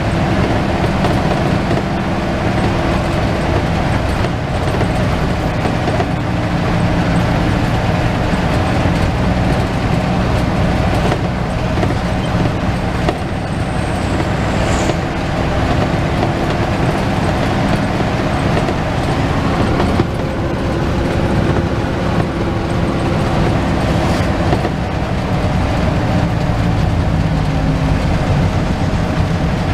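Medium bus engine running steadily with road and tyre noise, heard from inside the cabin as the bus drives, the engine note shifting now and then. A brief high falling squeal comes about halfway through.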